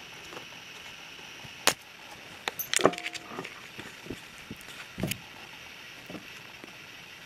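Scattered clicks and small metallic rattles from a metal-sheathed camera tether cable being batted and dragged by a kitten, with a quick cluster of rattles about three seconds in.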